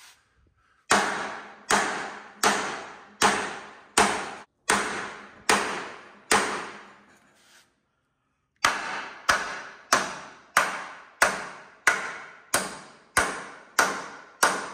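Small sledgehammer striking the bare steel frame rail of a 1971 Chevy C10 truck at a fastener, each blow ringing out and dying away. There are eight blows, about one and a half a second, then a pause of about a second, then ten more.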